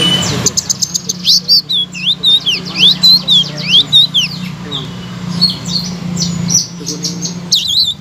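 Selendang biru songbird singing loudly: a rapid run of sharp chirps and swooping whistled notes, rising and falling, starting about half a second in. A steady low hum runs underneath and stops near the end.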